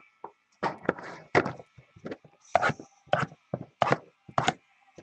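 Cardboard trading-card hobby boxes being handled and set down on a table: a string of irregular knocks and thumps, about eight in five seconds.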